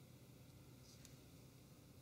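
Near silence: room tone, with one faint tick about a second in.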